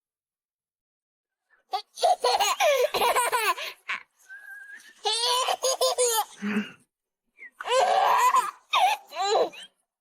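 High-pitched laughter in three bouts of rapid, pulsing laughs, starting about two seconds in.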